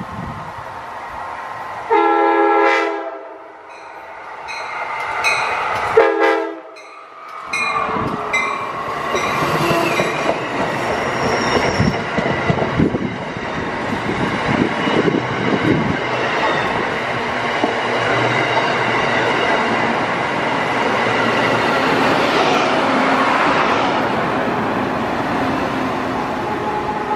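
Amtrak push-pull passenger train led by a cab car sounds its chime horn in several blasts, two long ones about four seconds apart with shorter ones between. It then rushes past close by, with the steady roar and clatter of wheels on rail and cars passing for the rest of the time.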